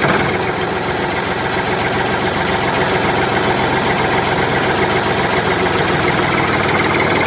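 Engine idling steadily with a rapid, even knocking beat, in the manner of a diesel tractor.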